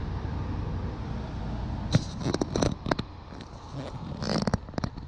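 Wind rumbling on the microphone. From about two seconds in there are two clusters of irregular sharp clicks and crackles.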